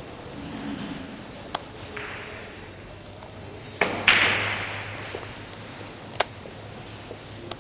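Billiard balls on a five-pins carom table clicking sharply: a single click about one and a half seconds in, then two hard ball-on-ball hits in quick succession a little past halfway, the second the loudest and followed by a brief hiss, and two lighter clicks later as the balls run on.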